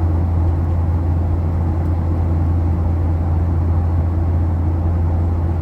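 Boeing 737-800 passenger cabin noise in flight: a steady, loud low drone of the engines and airflow with an even hiss above it, unchanging throughout.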